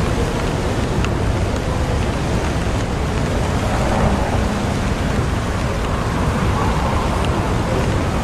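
Steady rain with a low rumble of city traffic underneath.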